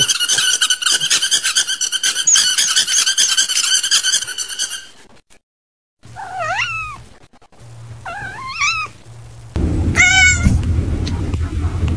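A steady high-pitched squeal for about five seconds, then cats meowing: two rising-and-falling meows, and about ten seconds in a louder meow from a white cat with its mouth wide open.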